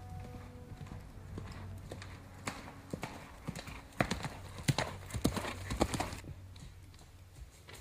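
A horse's hooves clip-clopping in an uneven run of hoofbeats, loudest about four to six seconds in and quieter afterwards.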